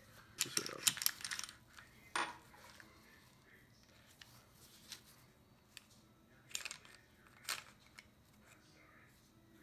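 Scattered clicks and light knocks of a Hi-Capa airsoft pistol's slide and barrel parts being handled and worked apart by hand. A quick run of clicks comes about half a second in, a sharp single click near two seconds, and a few more isolated clicks later.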